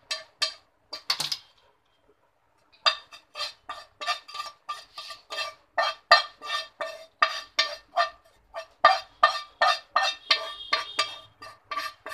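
A steel spoon tapping and scraping inside a nonstick frying pan to knock out the last ghee-roasted nuts: quick clinks, about three a second, each with a short ring, after a brief pause near the start.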